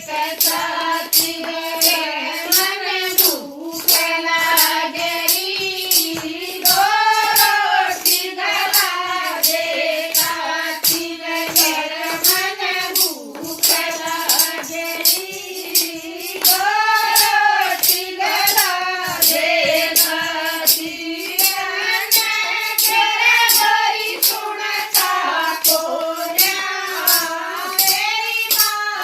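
A Haryanvi devotional bhajan sung in a high voice over a steady beat of jingling hand percussion.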